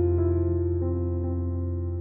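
Background music: a keyboard playing slow, changing notes over a held low bass note.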